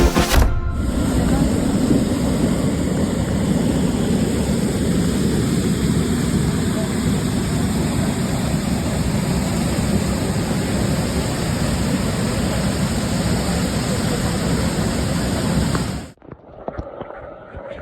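Monsoon waterfall rushing in a steady, even roar that cuts off suddenly about 16 seconds in.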